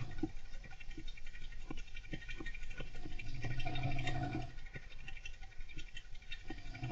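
A golden hamster scratching and rustling, many small irregular clicks throughout, over slow snoring: one snore swells about three seconds in and the next begins right at the end.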